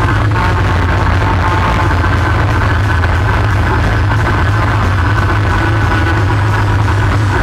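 ATV engine running at a steady cruising speed, a constant low drone with a steady whine above it.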